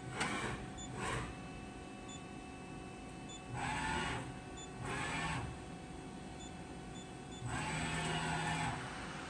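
DMG Mori ecoMill 1100V CNC vertical mill moving its axes under power, over the machine's steady hum. There are two brief sounds near the start, then whirring bursts of the axis drives about four and five seconds in, and a longer one of about a second near the end.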